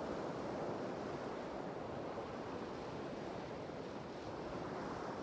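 Sea surf washing steadily on a rocky shore, with wind buffeting the microphone.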